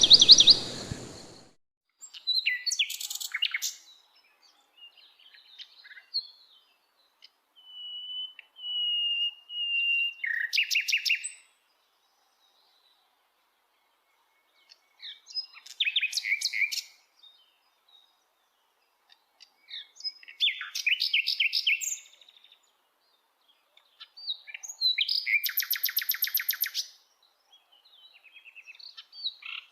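Common nightingale singing in separate phrases a few seconds apart: fast runs of repeated notes, and a series of clear whistles about eight seconds in. A brief burst of noise at the very start.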